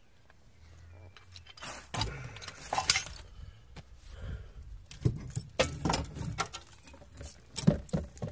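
Metal clinking, clanking and knocking from a hydraulic puller and a BMW E36 halfshaft as they are worked and handled. It is quiet for the first second or two, then comes as a run of sharp clinks and knocks.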